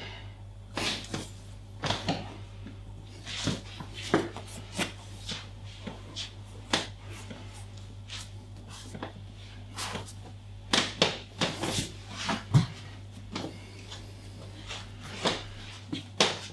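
Hands and forearm rubbing and sliding over bare skin during a massage, heard as short, irregular brushing strokes that come thickest about two-thirds of the way through. A low steady hum runs underneath.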